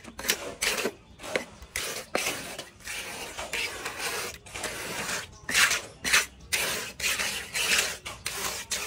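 Small steel hand trowel scraping and smoothing wet concrete in a run of short, irregular strokes, about two a second.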